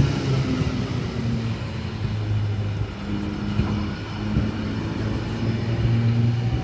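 Sydney Trains S set electric train standing at the platform, a steady low hum whose pitch shifts a few times.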